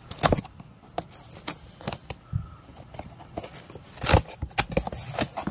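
Cardboard shipping box being opened by hand: irregular crackling, rustling and clicking of packing tape and cardboard, with a louder cluster of crackles about four seconds in.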